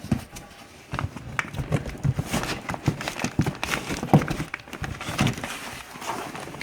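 Cardboard packaging being handled as a boxed firework cake is pulled from a shipping case: repeated knocks, bumps and rustling scrapes.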